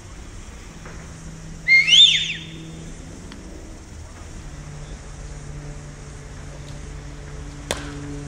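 A short, loud whistled call about two seconds in that steps up in pitch and then swoops down and up again. Near the end there is a single sharp knock, over a steady low background hum.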